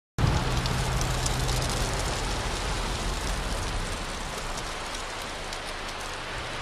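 Road and wind noise of a moving car: a steady rushing with a low rumble underneath. It starts suddenly just after the beginning.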